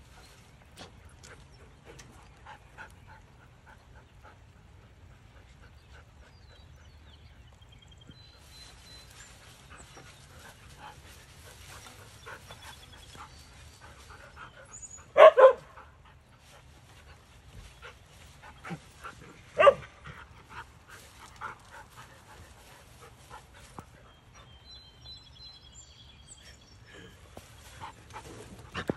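Siberian husky barking: two sharp barks close together about fifteen seconds in and a single bark a few seconds later, with smaller sounds of the dogs moving about in between.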